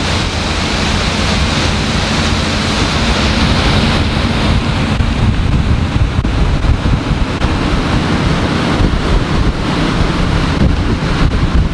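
Motor cruiser running at about 17 knots: wind buffeting the microphone over the rush of water along the hull and the low rumble of its twin Volvo Penta D6 diesel sterndrives. The wind buffeting gets gustier from about halfway through.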